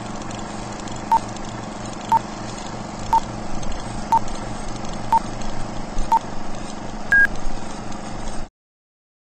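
Film-countdown leader sound effect: an old film projector whirring with crackle and hiss, with a short beep once a second six times, then a single higher-pitched beep. The whole sound cuts off suddenly near the end.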